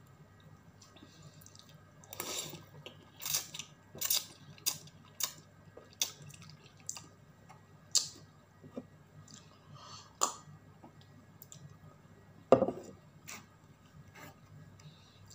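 Close-up eating sounds of a person eating noodles: a string of short wet clicks, lip smacks and chewing, with utensil taps against the bowl, and one louder noise about twelve and a half seconds in.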